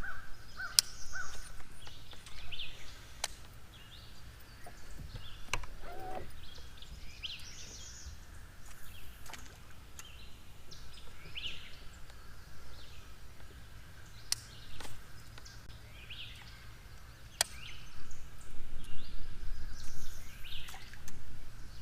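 Outdoor lake ambience: birds chirping and calling in short notes at intervals, over a low wind rumble, with a few sharp clicks or knocks scattered through.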